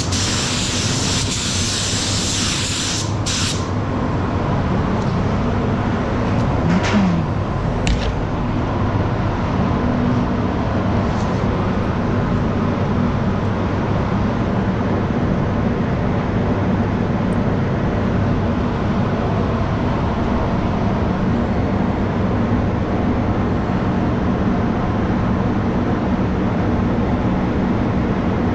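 Paint spray gun hissing with compressed air for about the first three seconds, then two short blasts around seven and eight seconds in. Underneath is the steady drone and low hum of the spray booth's ventilation fans, which runs on alone after the gun stops.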